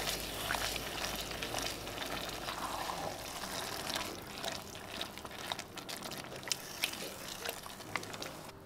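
Wooden spoon stirring a thick, wet tomato chili of beans and corn in an enamelled pot: a steady wet stirring noise with many small irregular clicks of the spoon against the pot.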